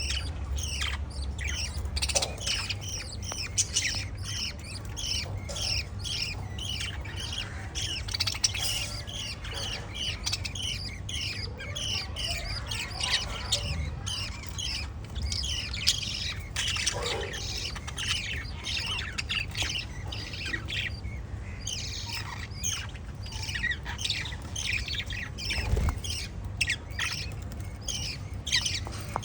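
Lovebirds chirping in a continuous rapid chatter of short, sharp, high notes, many a second with no pause.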